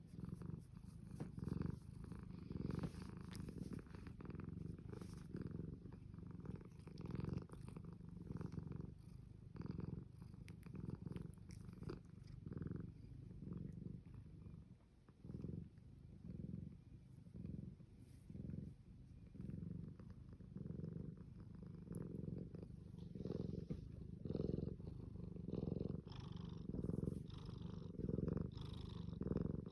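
Domestic cat purring steadily, close up, the low rumble swelling and fading with each breath about once a second.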